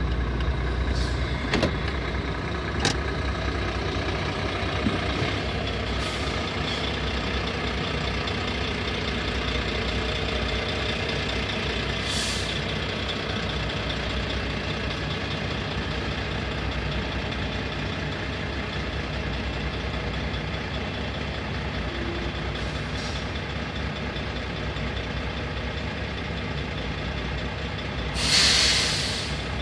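Heavy truck diesel engines idling and rumbling in a stopped traffic queue, a steady low drone. A short hiss of air comes about twelve seconds in, and a louder one-second air hiss near the end, typical of a truck's air brakes.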